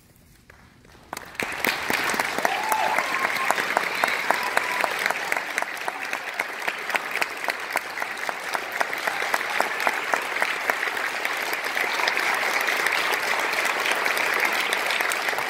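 Audience applauding, the clapping breaking out about a second in after a quiet pause and holding steady.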